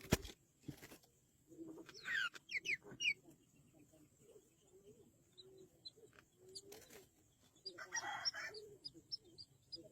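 Birds calling: low clucking notes throughout, a few quick sliding chirps about two seconds in, a harsh call about eight seconds in, then a run of short high chirps. Two sharp clicks at the start.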